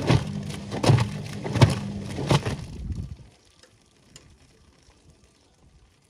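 Front-loading washing machine drum tumbling a wet, soapy load with the door open: a steady motor hum with the wet laundry thumping and slapping down about every 0.7 s. About three seconds in the drum stops, leaving only faint ticks and drips.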